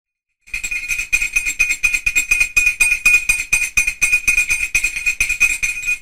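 Canadian Low Tone dog bell shaken by hand, its clapper striking rapidly and evenly, about five strikes a second, each ringing at one steady bright pitch. The ringing starts about half a second in and continues until near the end.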